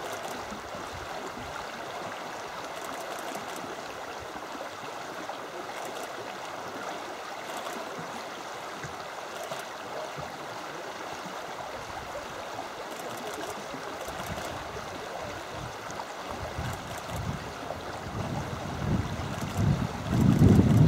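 Steady rush of running stream water. Low wind rumble on the microphone builds over the last few seconds.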